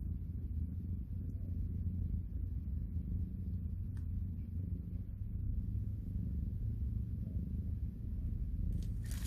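Cat purring: a steady low rumble.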